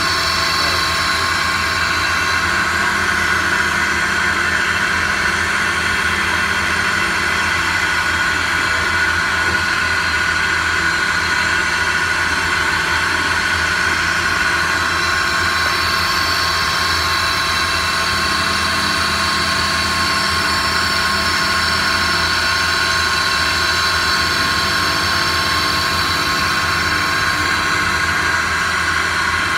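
Live-tooling CNC lathe milling the teeth of an aluminum timing-belt pulley with a finishing end mill. It runs steadily under coolant, with an even high spindle whine over a machine hum.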